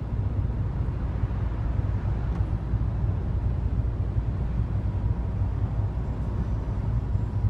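Steady low rumble of a car driving at road speed, engine and tyre noise heard from inside the cabin, while passing through a road tunnel.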